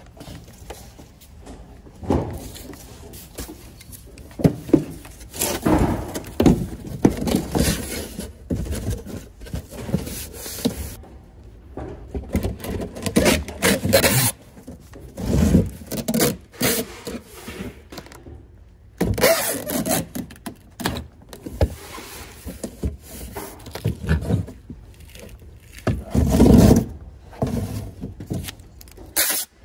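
Cardboard boxes being handled, slid and scraped, in irregular bursts of rubbing and rustling, with packing tape run off a hand-held tape gun to seal a box.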